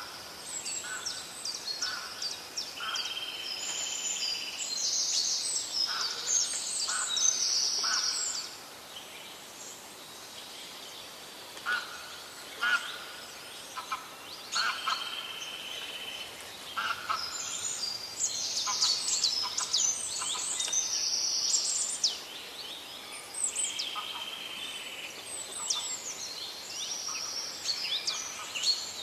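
Forest birds singing and calling: dense bursts of quick, high sweeping notes and chips in the first eight seconds and again from about seventeen to twenty-two seconds in, with a steady held whistle about three, fifteen and twenty-four seconds in.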